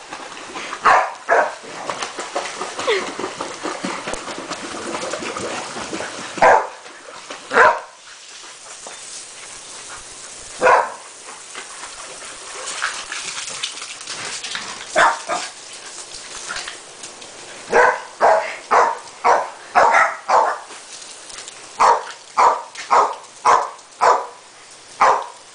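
Terrier barking in short, sharp barks: a few scattered ones at first, then quick runs of barks in the last third, over a steady hiss of water from a garden hose.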